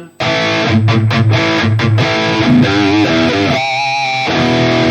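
Electric guitar playing a distorted rhythm part through a Valeton GP-200 multi-effects amp modeler, dry with its delay and reverb switched off. Quick low chugs give way to chords, ending on a held chord.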